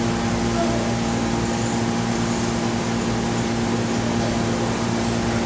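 Steady background hum and hiss of a hall, with a few constant low tones running unchanged throughout, typical of ventilation or an amplified sound system.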